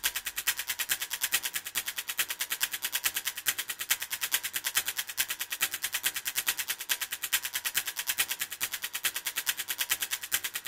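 A fast, even run of short, sharp clicks, about eight a second, thin and high with little low end.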